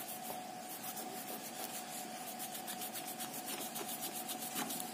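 Cloth rubbing back and forth over the bare circuit board of a TV remote, in soft, quick repeated strokes, wiping moisture off the key contacts: damp that is shorting the contacts and making the remote press buttons by itself.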